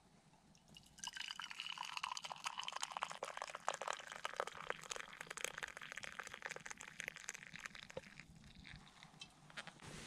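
Coffee pouring from an enamel coffee pot into an enamel mug, a steady splashing stream that starts about a second in and thins out near the end.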